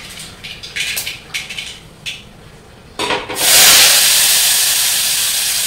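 A few light utensil knocks and clinks, then about three seconds in chopped green beans hit hot oil in a pan and start a loud, steady sizzle.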